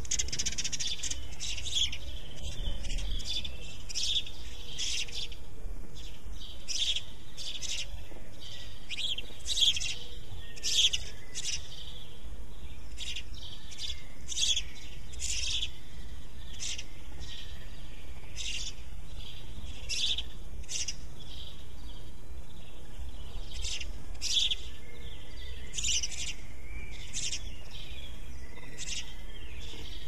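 House sparrows chirping: a steady, irregular run of short chirps, one or two a second, some in quick clusters, over a steady low hum.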